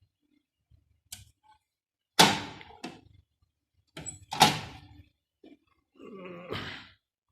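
Two loud, sharp knocks about two seconds apart, each dying away quickly, with lighter clicks around them and a short creaking rattle near the end.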